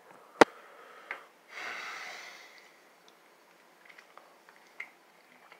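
A sharp knock just under half a second in and a lighter one about a second in, then a short, noisy breath out, with faint small clicks afterwards: a person breathing between bites while handling the phone and utensils.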